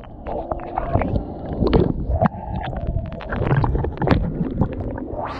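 Muffled underwater sound of moving water picked up by a submerged camera: a low rumbling and gurgling with scattered clicks and knocks.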